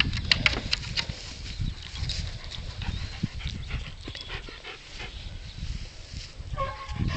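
Siberian husky panting and whimpering softly, with a few sharp clicks in the first second as its paws move on the wooden sled boards. Wind rumbles on the microphone throughout.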